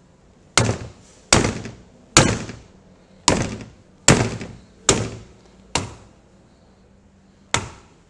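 Rubber mallet striking the handle of a loaded speargun held at about 180 kg of tension: seven sharp hits roughly eight-tenths of a second apart, then one more after a pause near the end. Quite violent hits, shock-loading the handle to test whether the trigger mechanism misfires; it holds.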